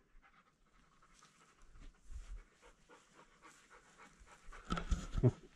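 Quick, short panting breaths, faint at first, with a louder run of pants near the end.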